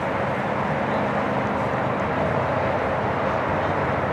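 Steady outdoor background noise: an even hiss and rumble with a faint low hum underneath and no single sound standing out.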